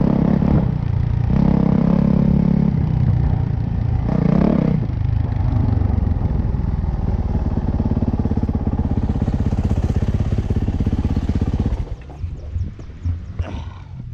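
2018 Yamaha YZ450F's single-cylinder four-stroke engine revving up a few times, then running steadily at low revs with an even beat. About twelve seconds in, the engine sound drops away abruptly, leaving scattered clicks and rattles.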